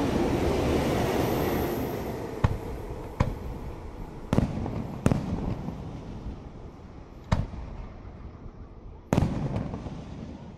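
Aerial firework shells bursting. A dense rumble of reports dies away over about the first two seconds, then single sharp bangs come every second or two, about six in all, getting quieter toward the end.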